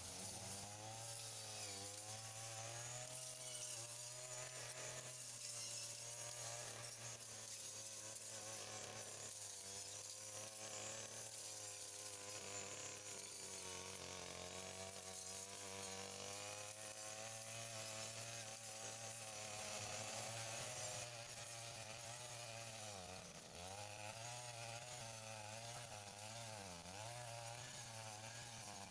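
Small two-stroke engine of a handheld garden power tool running steadily, its engine speed dipping and picking up again a few times near the end.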